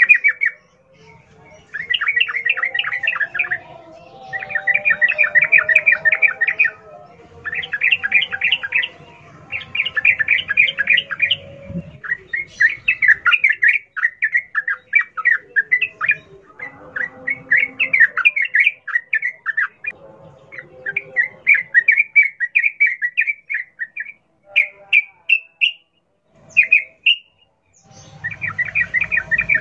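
Yellow-vented bulbul singing its wild-type song in bubbly phrases of rapid notes, each about two seconds long, repeated with short pauses. Fainter, lower chatter runs under some of the phrases.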